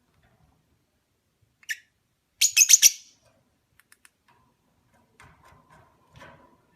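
Opaline parblue lovebird giving one short, high chirp, then about a second later a quick burst of several shrill chirps in rapid succession.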